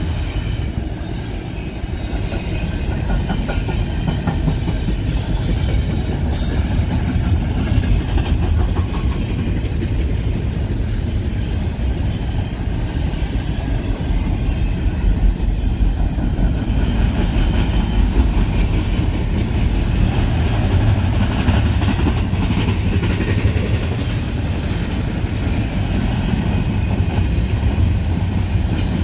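Double-stack intermodal freight train's loaded well cars rolling past: a steady, heavy rumble of steel wheels on rail, with scattered clicks in the first several seconds.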